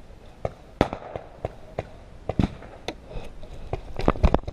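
Paintball markers firing a dozen or so sharp, irregularly spaced single shots, with a quick cluster of louder shots near the end.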